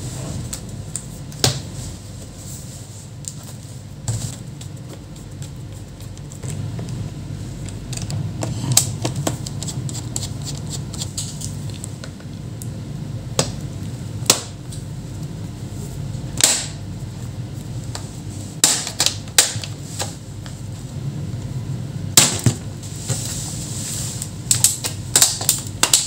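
Sharp, scattered clicks and snaps of an HP ProBook 450 G6 laptop's bottom cover being handled and pried open with a plastic pry tool, its clips letting go. The clicks come thicker near the end, over a steady low hum.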